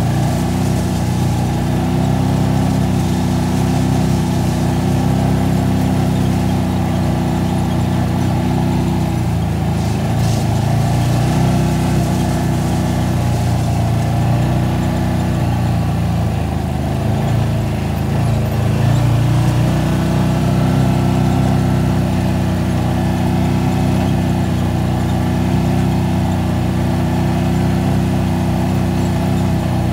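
Side-by-side UTV engine running steadily as the vehicle drives along a dirt road, heard from on board. The engine note eases slightly and picks back up a couple of times.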